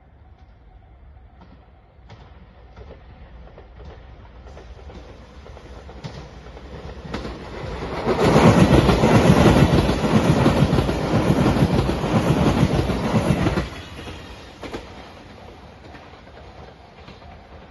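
A JR limited express train passing a level crossing at speed, its wheels running over the rails. It builds up over several seconds, is loudest for about five seconds, then drops away suddenly as the last car goes by. A level crossing alarm rings steadily underneath.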